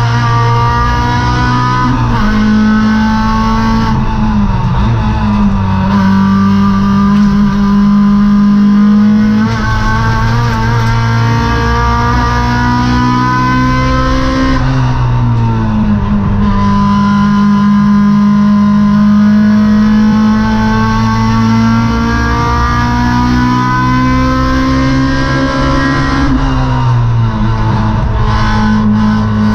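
Honda Civic EK4 race car's four-cylinder engine at full throttle, heard from inside the cabin: the pitch climbs steadily and drops sharply at each gear change or lift, about five times.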